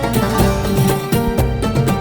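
Background music with a steady beat and plucked strings.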